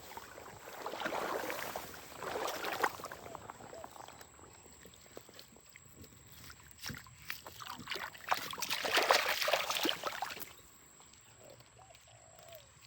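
Water splashing and pouring in irregular bursts: two about a second and two seconds in, and a longer, louder one about nine seconds in, as from hands or gear moving in shallow river water.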